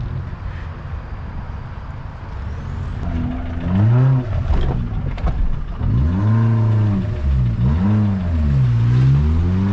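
An off-road 4x4's engine working hard on a muddy trail. It is quieter at first, then is revved up and down several times, the pitch rising and falling about once every second or so as the driver works the throttle. Two brief knocks come partway through.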